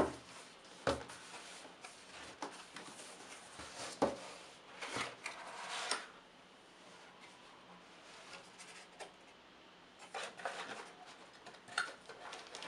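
A cardboard tablet box being handled and opened by hand: sharp knocks and taps of the box near the start and about four seconds in, the lid scraping open around five seconds, then rustling of the tablet's plastic wrap from about ten seconds.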